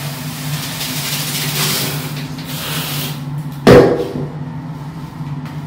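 Handheld shower spraying water into a plastic washbasin onto a mesh bath pouf and diluted shampoo, running for about three seconds and then stopping. A single sharp, loud knock follows about half a second later, over a steady low hum.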